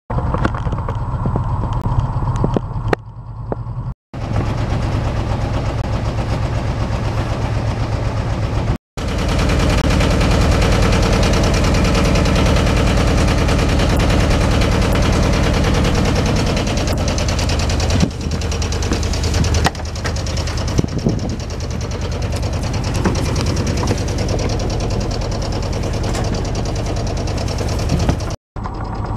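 A sailboat's auxiliary engine running steadily under way, with a fast, even throb. It drops out suddenly for a moment three times, where the clips are joined.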